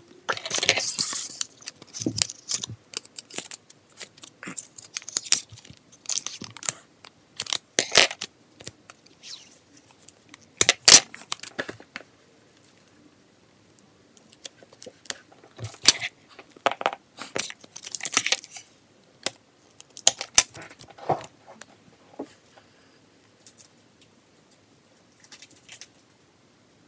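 Clear plastic cling wrap crinkling and clear tape being torn and pressed on, in scattered bursts with sharp clicks and taps in between.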